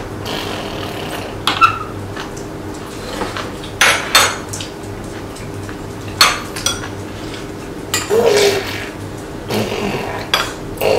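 Metal chopsticks and spoons clinking and tapping against ceramic bowls and plates during a meal: a handful of separate, sharp clinks spread over several seconds.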